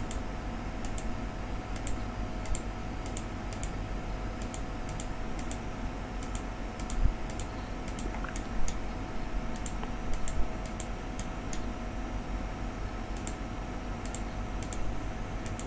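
Computer mouse clicking at about two light, sharp clicks a second, pausing briefly near the end: each click places a point on a spline curve being drawn in CAD software. A faint steady hum runs underneath.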